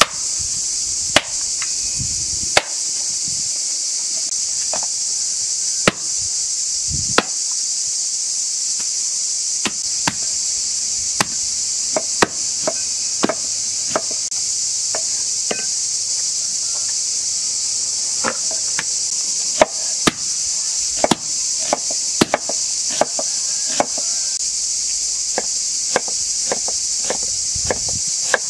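A heavy cleaver chopping through beef rib bones on a wooden stump block. The sharp chops come a second or more apart at first, then closer together about a third of the way in, over a constant high-pitched insect chorus.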